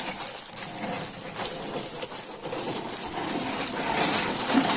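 Dried hazelnuts in their husks crunching and rustling inside a woven plastic sack as they are trodden underfoot: an irregular, steady run of dry crackles. The treading breaks the dried husks off the nuts.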